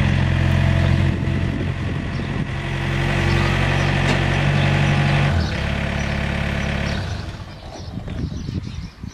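Wacker Neuson 3503 mini excavator's diesel engine running steadily as the machine works its arm. The engine note drops about five seconds in, and the sound falls away about two seconds later.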